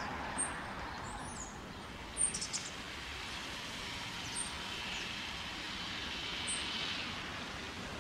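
Steady outdoor background noise with a few short, high bird chirps scattered through.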